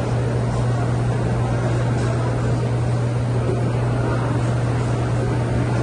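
Steady low mechanical hum with an even rushing noise over it, from running machinery.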